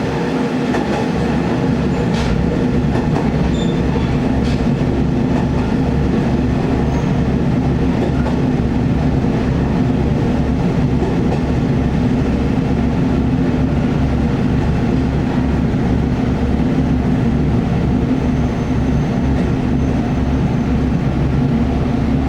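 Diesel railcar's engine running with a steady, evenly pulsing low throb, heard inside the passenger cabin.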